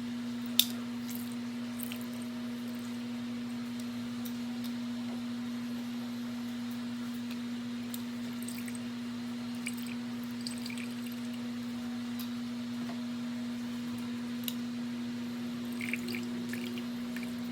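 Lemons being squeezed by hand into a small bowl: scattered drips and small clicks of juice, the sharpest about half a second in, over a steady low hum.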